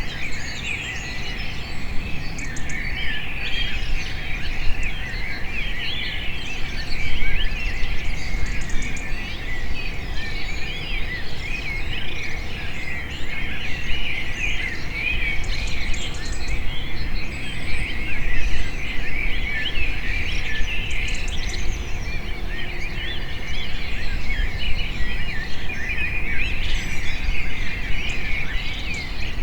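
Many small birds chirping and twittering at once in a dense, unbroken chorus, over a steady low background rumble.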